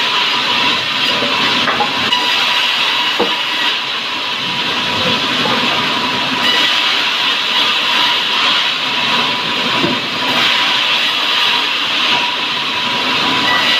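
A power woodworking machine running steadily on sengon wood: a continuous loud hissing noise with a thin steady whine, without pauses.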